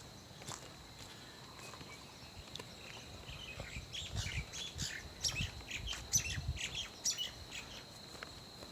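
Birds chirping outdoors: a busy run of short, high calls that starts a few seconds in and thins out near the end.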